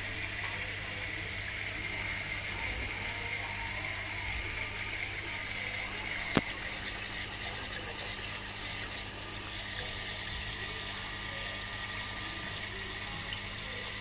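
Water from a small homemade tiered tabletop fountain trickling steadily over its ledges into the pebble pool, with a low steady hum underneath. A single sharp click about six seconds in.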